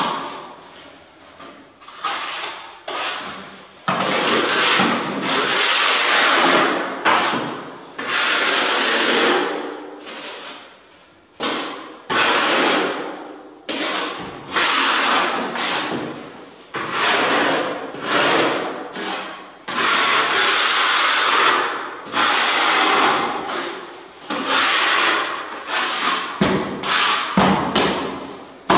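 A steel notched trowel scraping and spreading cement tile adhesive, over and over, in strokes of about a second each, as a tile is buttered with adhesive before laying.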